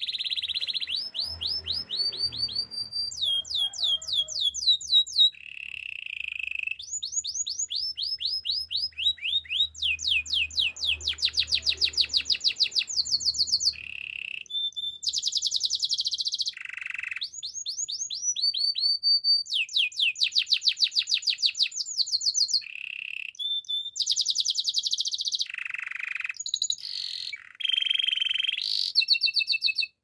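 Canary singing a continuous song of trilled phrases: each phrase a fast run of repeated falling notes, about eight to ten a second, switching to a new phrase every second or two, with harsher buzzy phrases mixed in.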